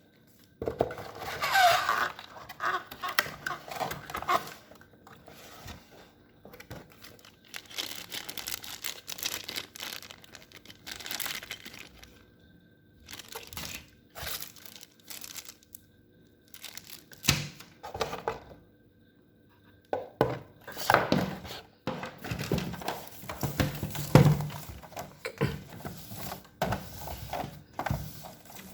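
Keyboard packaging being handled and opened: crinkling and rustling in irregular bursts, with occasional thunks and a few short pauses.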